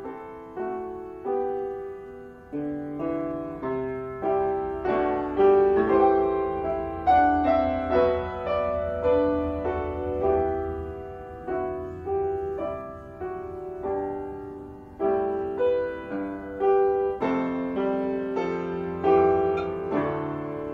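Solo piano playing slow, quiet music, one chord or note about each second, each ringing and fading before the next.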